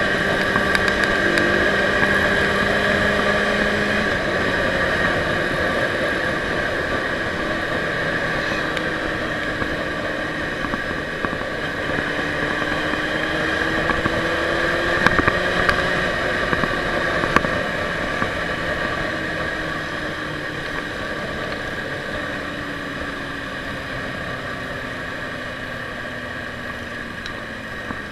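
Ducati motorcycle engine running under way, heard from the rider's seat together with wind rush; the engine note slowly rises and falls with the throttle, with a few sharp clicks around the middle.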